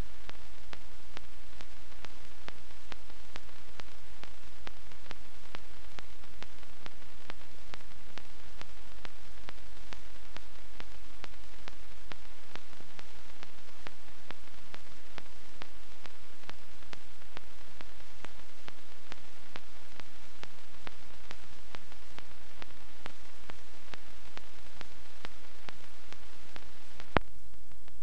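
Steady hiss and low hum from the transfer of a silent 16 mm film, with no recorded sound, and faint ticks at an even pace throughout. A single sharper click comes about a second before the end, after which the hiss turns duller.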